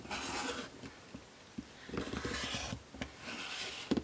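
Rotary cutter rolling along the edge of an acrylic quilting ruler, slicing through fabric on a cutting mat: three short, crisp scraping cuts as the block is squared up.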